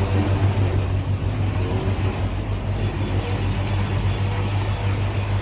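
Catamaran's engine running steadily under way, a constant low hum with a noisy rush of wind and water over it.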